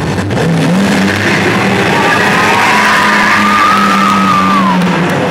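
Rock music with guitar played loud over a sound system, cutting in suddenly, with a long held low note under a higher line that slides down near the end.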